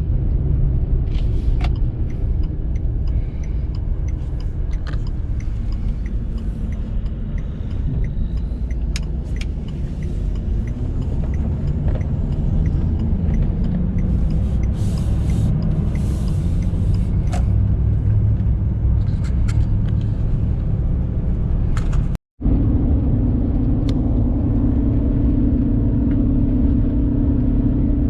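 Heavy engine running with a steady low rumble and scattered clicks and rattles. After an abrupt cut about 22 seconds in, it continues as a steadier low engine hum.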